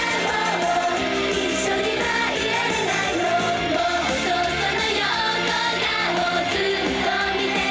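Japanese idol pop song performed live, with a girl group singing over a steady band backing.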